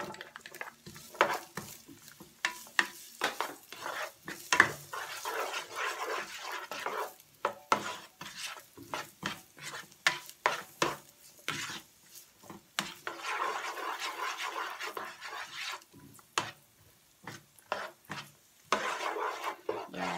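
Chopped onion and bacon frying in a nonstick skillet, stirred with a plastic spatula: many short scrapes and knocks of the spatula against the pan over a sizzle that swells and fades several times.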